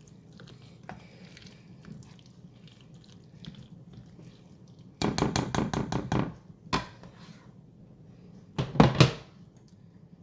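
A spice shaker of Greek seasoning shaken over a dish of macaroni and cheese: a quick run of rattling shakes about halfway through, then a louder short clatter near the end.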